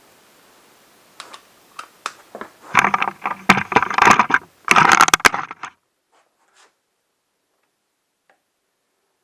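Metal hand tools clicking and clattering: a few separate clicks, then about three seconds of busy, loud rattling and clicking.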